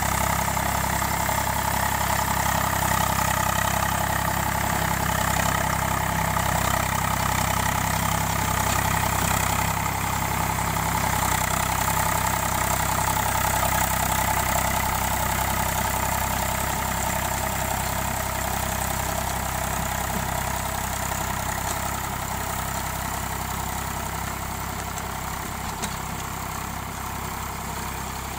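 Eicher 485 tractor's diesel engine running steadily under load while it pulls a rotavator through a flooded paddy field, puddling the mud. The sound fades gradually over the second half as the tractor moves away.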